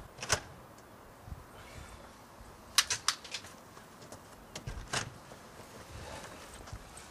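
Sharp clicks and rattles of a front door's handle and lock as the door is opened: a quick cluster about three seconds in, with single clicks just after the start and about five seconds in.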